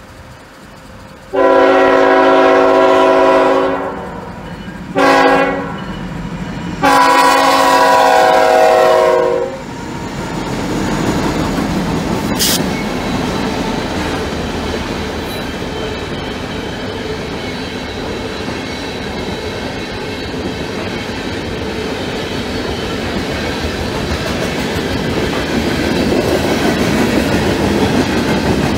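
CSX freight locomotive's air horn sounding for the grade crossing: a long blast, a short one and another long one. The train then rumbles past with steady wheel clatter from its freight cars, growing slightly louder near the end.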